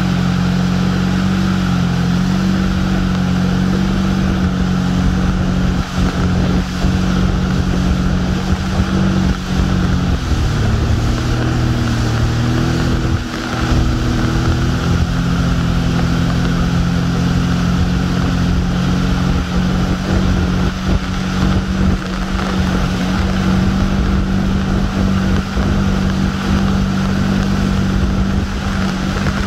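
Motorboat engine running at speed while towing, over the rush of its churning wake. The engine note dips and shifts briefly about ten seconds in, then steadies again.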